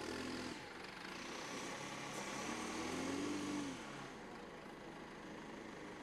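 Wheeled backhoe's diesel engine running while the front loader bucket tips a load of soil into a trench; its note rises and then falls back about halfway through.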